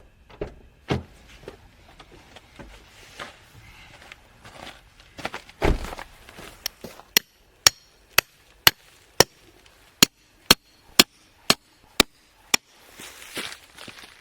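Hammering: irregular knocks and a couple of heavy thumps, then a run of about a dozen sharp, evenly spaced strikes, about two a second, that stops a little before the end.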